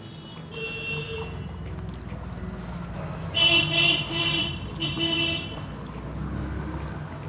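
Vehicle horns honking over a steady low traffic rumble: a short horn about half a second in, then three louder honks between about three and a half and five seconds in.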